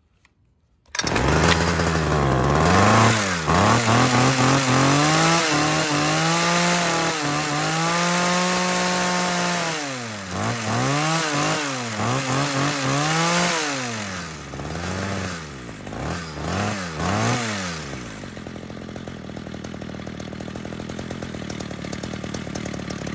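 Ryobi HT26 hedge trimmer's small two-stroke engine, running on a newly fitted replacement carburetor, revved up and down repeatedly and held high for a couple of seconds, then a few quick blips before it settles to a steady idle for the last few seconds. It is being warmed up and now idles and takes throttle.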